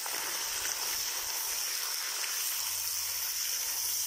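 Pieces of meat sizzling in hot oil in a kazan as they go in to brown for plov: a steady hiss.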